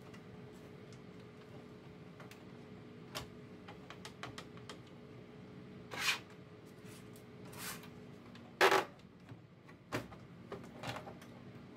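Scattered light clicks and knocks of plastic scanner parts being handled as the drive belt is hooked back onto the carriage of a Xerox WorkCentre 3335/3345 flatbed scanner, the loudest knock about three-quarters of the way through. A faint steady hum runs underneath and stops shortly before that knock.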